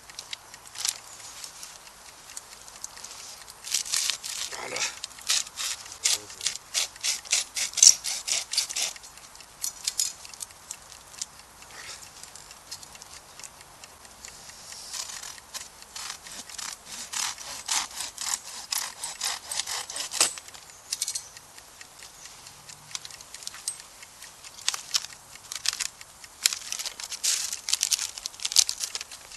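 Hand saw cutting wood, in three runs of quick back-and-forth strokes with short pauses between them.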